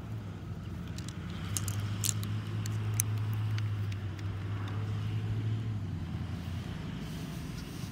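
A school bus's diesel engine runs with a steady low hum that grows louder about a second in and eases off after about six seconds. Several sharp clicks sound early on as golf clubs are gathered.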